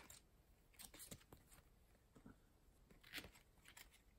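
Faint handling of a stack of trading cards: a few light card-stock clicks about a second in and a brief rustle a little after three seconds as cards are slid from the front of the stack to the back.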